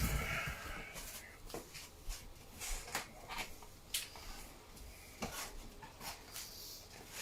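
Sparse light clicks and soft rustling, as of small objects being handled on a table, with a sharper tick now and then.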